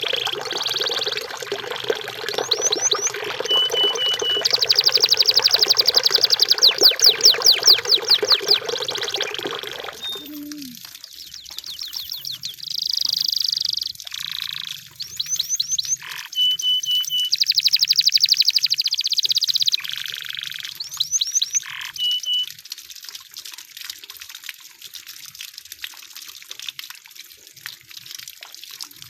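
Canary song: fast trills and runs of rapidly repeated high notes, broken by a few short held whistles and brief pauses between phrases. A rushing, water-like noise under the song stops suddenly about ten seconds in.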